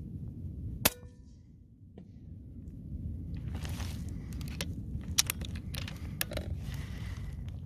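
Air rifle shot: one sharp crack with a short ringing about a second in. A couple of seconds later comes a string of metallic clicks and clanks with rustling, the rifle being handled.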